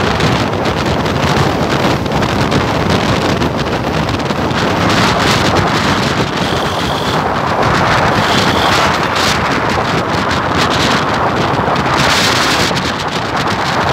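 Steady wind noise buffeting the microphone, over the road and engine noise of a vehicle driving along.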